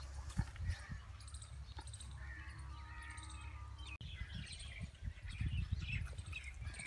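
Small birds chirping and calling over and over, over a steady low rumble.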